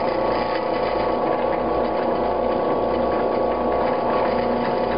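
Benchtop drill press running steadily with a constant hum, its bit fed down to drill a shallow divot into the centre of a tap holder.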